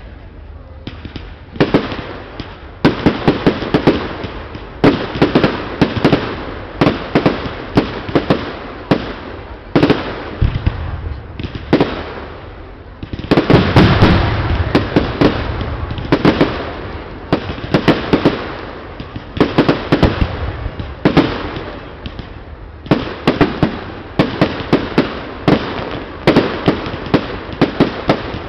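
Aerial firework shells bursting in rapid succession, bang after bang in quick clusters, with a dense barrage of overlapping bursts about halfway through.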